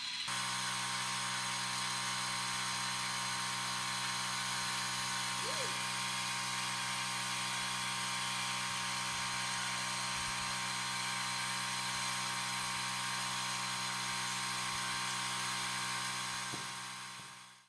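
Creality Falcon2 diode laser engraver running while it cuts, its fan and air-assist pump giving a steady motorised whine and hum that fades out near the end.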